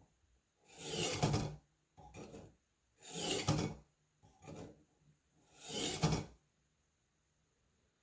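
Buck 119 hunting knife blade drawn through a Warthog knife sharpener, five rasping strokes with louder and quieter strokes alternating, stopping about six seconds in.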